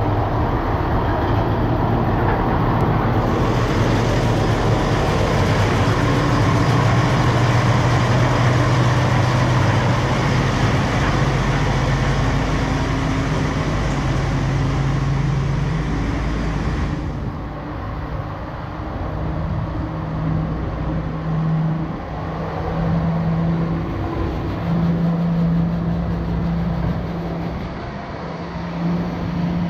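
Snowdon Mountain Railway rack locomotive working close by: a steady rumble with a hiss over the first half. After that, a humming engine note rises and falls in steps.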